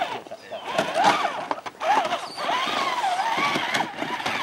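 Electric motor and drivetrain whine of an RC scale trail truck, its pitch rising and falling with the throttle as it is driven, with voices around it.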